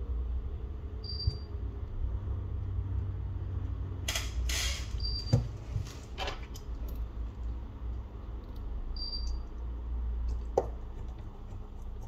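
Small clicks and brief scrapes of tools handling a phone's parts during a repair, with a sharp click near the end. Under them runs a steady low hum, and a short high chirp comes back about every four seconds.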